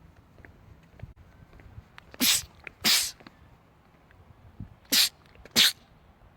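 A man sneezing four times in two quick pairs, each sneeze a short sharp burst.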